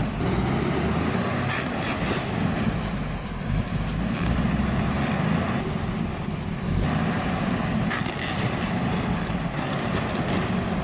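Heavy truck's diesel engine running hard and steadily, pulling against a tree stump.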